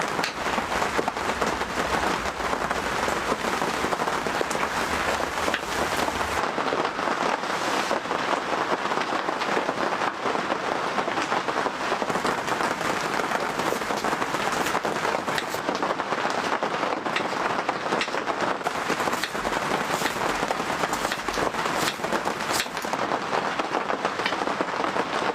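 Heavy rain falling steadily on a surface, a dense patter with many sharp ticks of individual drops.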